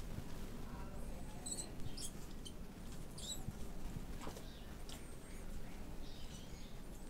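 Several faint, short, high squeaks from a mouse being attacked by a red tegu, clustered between about one and a half and three and a half seconds in, with a few soft clicks.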